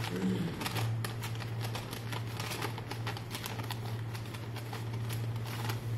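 Turban cloth rustling as it is twisted by hand into fine pleats, with many small irregular rustles and clicks. A steady low hum runs underneath.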